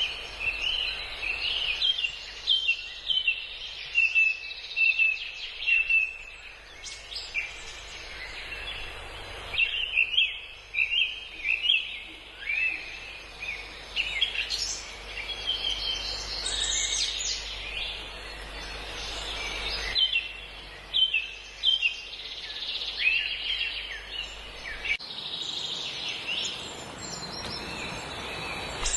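Several birds chirping and calling continuously, short chirps and quick up-and-down notes overlapping one another, with frequent sharper, louder calls.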